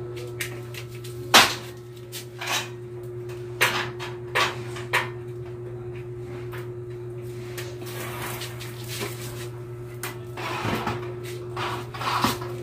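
Scattered knocks and clicks of a metal sliding-window frame being handled and pressed into place, the sharpest about a second and a half in, over a steady low hum.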